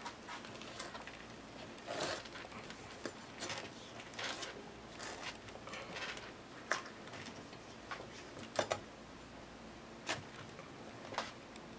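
A chef's knife working into the knobbly rind of a whole raw jackfruit, with the heavy fruit shifting on the cutting board: faint, scattered clicks and scrapes, a few louder than the rest.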